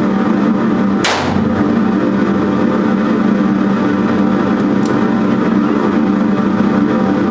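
A single sharp shot from a Taurus .38 revolver about a second in, over a loud steady droning hum, with two faint clicks a few seconds later.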